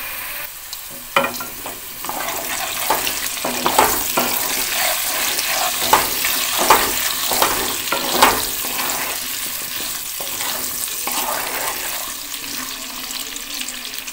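Small whole potatoes sizzling in hot oil in a kadai, with a spatula stirring them and knocking and scraping against the pan. The clatter of stirring is busiest in the first two-thirds and eases off near the end, while the steady sizzle goes on.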